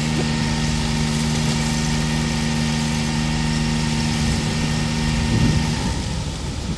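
Engine on a small river workboat running steadily with a low, even hum, then shut off about six seconds in.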